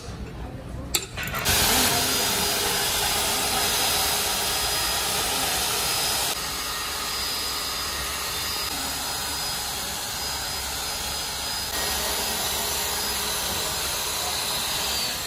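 Two hammer knocks on the cylinder head, then a heavy electric drill spinning a rotary brush against the head's metal face: a steady, loud scouring noise with a faint motor whine.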